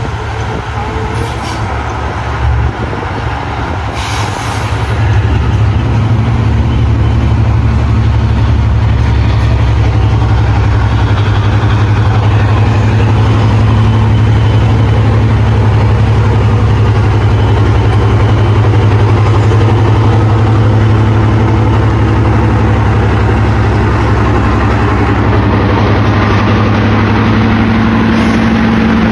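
Class 55 Deltic diesel locomotive's Napier Deltic engines running with a steady low drone, growing louder about five seconds in and then holding.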